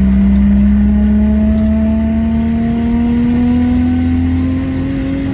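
1989 Nissan Laurel C33's engine pulling under acceleration, its pitch rising slowly and steadily as the revs climb, over a steady low road rumble.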